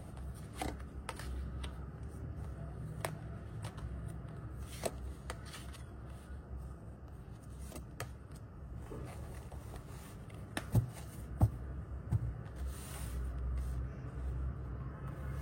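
Tarot cards being drawn from the deck and laid on a table: scattered soft taps and slides of card on card, over a steady low hum.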